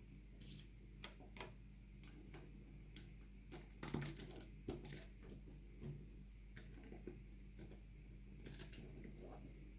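LEGO bricks being handled and pressed together: scattered small clicks and taps, with a quick run of louder clicks about four seconds in and a short rattle near the end.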